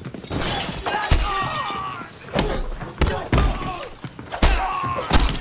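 Film fight sound effects: glass display cases shattering about half a second in, then a run of heavy hits and thuds, about six more impacts.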